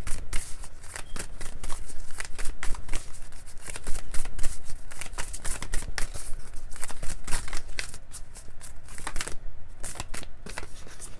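A deck of oracle cards shuffled by hand: a quick, continuous run of papery riffles and flicks, with a short lull shortly before the end.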